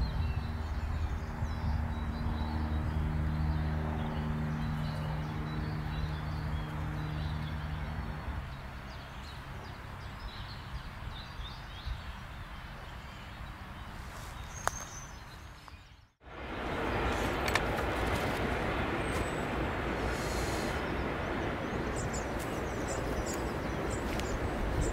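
Outdoor ambience with small birds chirping over a steady rushing background; a low hum with several steady tones runs for the first eight seconds or so. About 16 seconds in the sound cuts out briefly, and a louder, even rushing noise follows.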